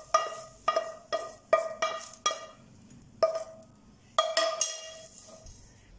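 A wooden spatula and granite-coated frying pan knocking and clinking as fried mushrooms are scraped out onto a ceramic plate, each knock ringing briefly. About nine knocks, close together at first, then fewer and fainter after two or three seconds.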